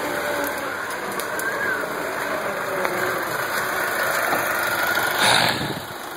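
Four-cylinder diesel engine of a four-wheel-drive YuMZ-6 tractor running as the tractor drives past, with a brief louder rush of noise about five seconds in.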